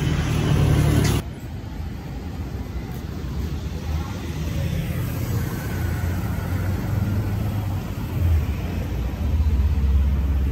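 Street traffic: cars and a motorcycle passing close by, a steady engine and tyre rumble that grows louder near the end.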